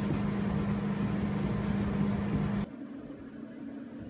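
A steady low hum over a hiss that cuts off abruptly about two and a half seconds in, leaving quieter room tone.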